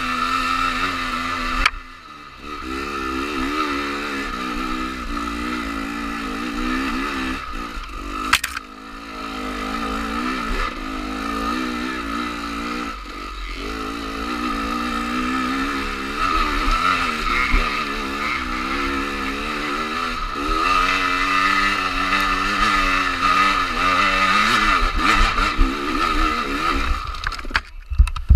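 Dirt bike engine revving up and down as the throttle is opened and closed on a rough trail, with a sharp knock about eight seconds in. Near the end the engine sound cuts off abruptly as the bike tips over.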